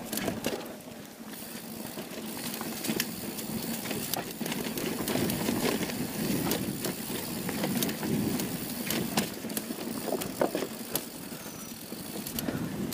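Polygon Siskiu T7 mountain bike rolling down a dirt singletrack: a steady rush of tyre noise, with frequent sharp clicks and rattles from the bike as it goes over bumps.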